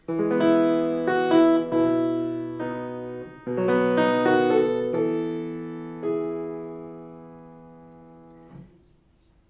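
Piano playing a short chordal phrase in E major, the Meyer schema realized over the partimento bass's opening 1–5–5–1: a run of chords over the first few seconds, a fresh chord about three and a half seconds in, and a last chord about six seconds in that is held and dies away.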